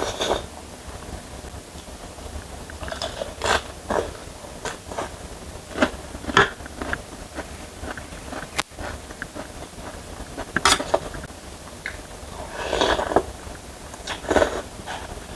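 Close-up eating sounds: slurping and chewing instant noodles in broth, in irregular short bursts, with a few sharp clicks of a metal fork and spoon on a steel tray. A low steady hum runs underneath.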